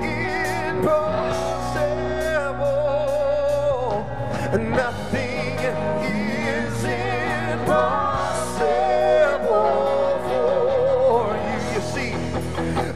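Live gospel band performing a song: singers' voices with a wide vibrato over electric guitars, electric bass, keyboard and drums, the music running on at a steady loudness.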